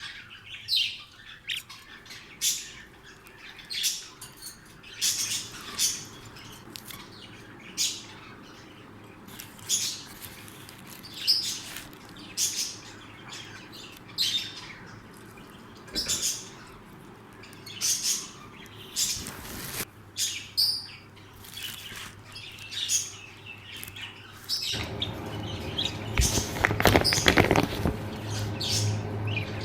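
Pet blue lovebirds chirping: short, sharp, high chirps about once a second. About 25 seconds in, a steady low hum and background noise come up under the chirps.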